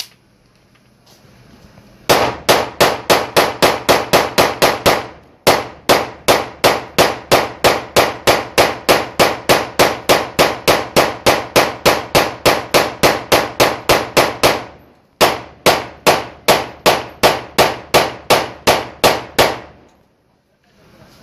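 A .30 bore (7.62×25 mm Tokarev) pistol fed from a long extended magazine firing rapidly, about four shots a second, in three long strings with short breaks about five and fifteen seconds in.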